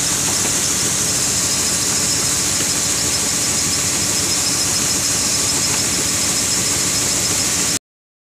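Kartar combine harvester running steadily while its unloading auger pours maize grain into a trailer: steady machine noise with a strong high hiss. It cuts off abruptly near the end.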